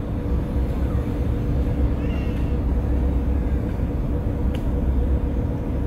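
Car ferry's engines droning steadily on board: a low rumble with a constant hum.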